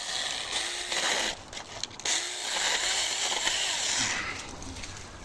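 Battery-powered mini chainsaw's small electric motor and chain running in two short bursts, the pitch rising and falling as it speeds up and slows. It stops about four seconds in.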